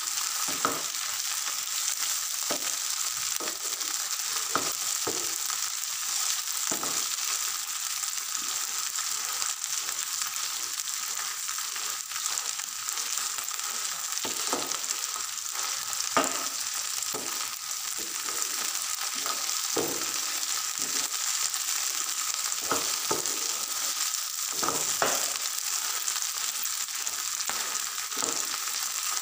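Sarson ka saag (mustard greens) sizzling as it fries in a non-stick frying pan, with a spatula scraping and tapping against the pan at irregular moments as the greens are stirred.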